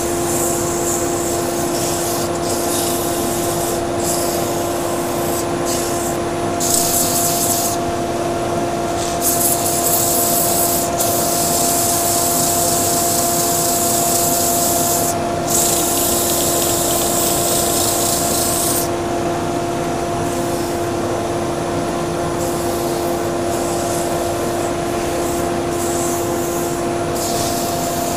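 240-grit abrasive paper held by hand against a turned wood vase spinning on a lathe: a hissing rub that comes and goes in strokes, with one long unbroken stretch in the middle. Under it runs a steady machine hum.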